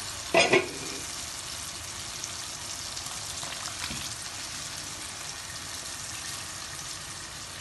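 Steady sizzling, bubbling hiss of stovetop cooking: a large pot of water at a rolling boil next to a pan of chicken masala. There are two loud knocks about half a second in, and soaked basmati rice is tipped into the boiling water about halfway through.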